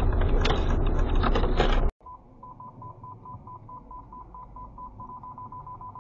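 Loud traffic noise cuts off abruptly about two seconds in. A car's parking sensor then beeps at one steady pitch, about five beeps a second, the beeps coming faster toward the end as the car closes on an obstacle.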